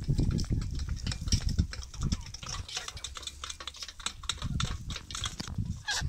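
A flock of free-range chickens foraging on dry ground: many quick clicks and taps from pecking and scratching, over an uneven low rumble.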